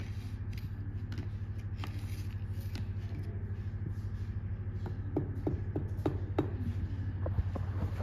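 A parakeet's beak and claws tapping and scraping lightly on a mirror and its frame: a scattering of small clicks, most of them about five to six and a half seconds in, over a steady low hum.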